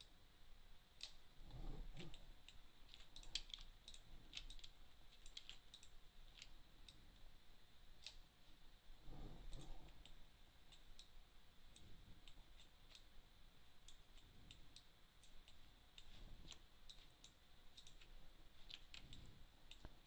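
Faint computer mouse clicks at an irregular pace, with a few soft low thuds in between.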